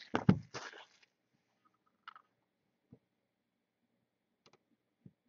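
Cardboard boxes of trading cards being handled and set down on a table: a few knocks and rustles in the first second, then only a few faint, scattered clicks.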